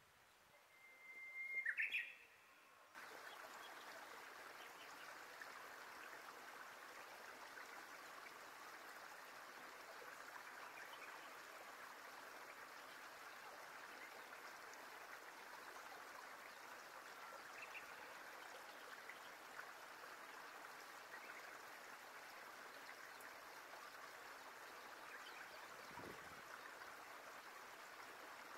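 Faint wetland ambience. About a second in there is one short whistled bird call, the loudest sound here. Then an even, faint hiss starts abruptly and runs on, with scattered soft bird chirps.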